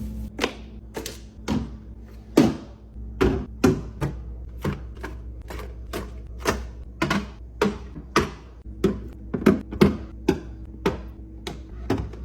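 Containers, lids and bottles being set down and arranged on fridge shelves: an uneven run of sharp clicks and knocks, about two a second.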